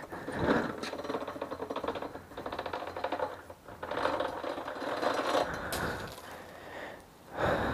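Old, worn 530 motorcycle roller chain, broken at a link, being pulled off the sprockets and dragged over concrete: a rapid clicking rattle of the links in long runs.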